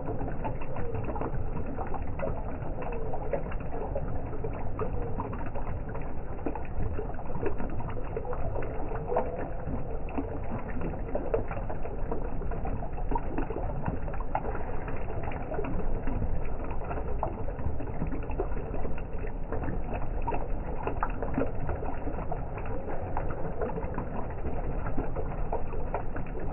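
Water from a tiered stone garden fountain trickling in thin streams and splashing into the pool of its basin: a steady patter of drips and small plinking splashes.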